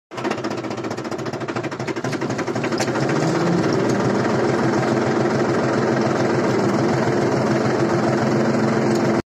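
Tractor engine running steadily under load while pulling a nine-tine cultivator through the soil, heard close up from the tractor. It grows a little louder over the first few seconds, then holds steady.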